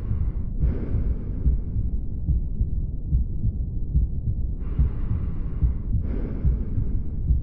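Auscultation recording of a heart with mitral stenosis: repeated low heartbeat thumps with a low rumbling murmur between them, the murmur of blood forced through a narrowed mitral valve. Two soft hissing swells, each in two parts, come about five seconds apart.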